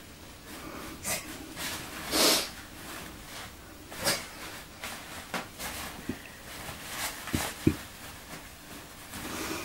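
Loose toilet paper rustling and crinkling in irregular bursts as kittens pounce on it and wrestle in it, the loudest burst about two seconds in, with a few soft taps of paws on the floor near the end.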